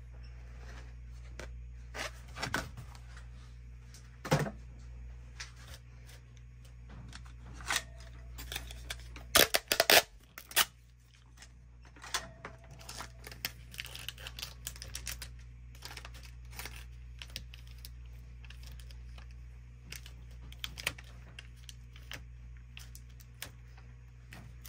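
Hands handling a plastic sheet, a small plastic bag and a silicone resin mold on a work table: scattered taps, rustles and crinkles, with a loud cluster of clattering handling noise about ten seconds in. A steady low hum runs underneath.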